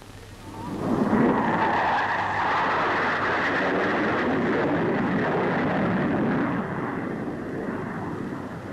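Jet noise of a de Havilland DH.110 twin-engined fighter flying low past: it swells in over the first second, holds steady, then eases off after about six and a half seconds.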